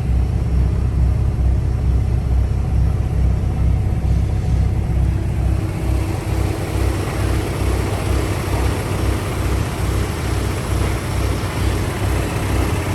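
Semi truck's diesel engine running steadily with a heavy low rumble.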